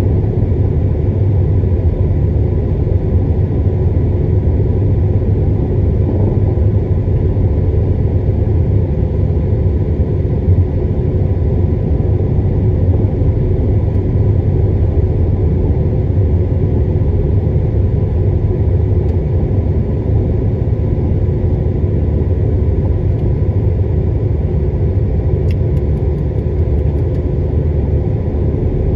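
Steady low rumble of a car driving at low speed, heard from inside the cabin: engine hum and tyre noise on the road, unchanging throughout.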